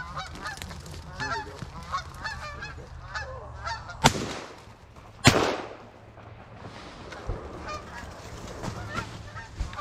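A flock of geese honking, broken about four seconds in by two shotgun shots a little over a second apart, the second with a longer echo: a double on the passing geese. The honking carries on more faintly after the shots.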